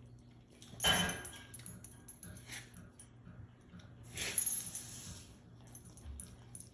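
A Doberman puppy noses and mouths a lemon on a rug, with light metallic clinks from its collar tags. Two louder short noisy bursts, about a second in and again past four seconds, stand out from a few fainter ones.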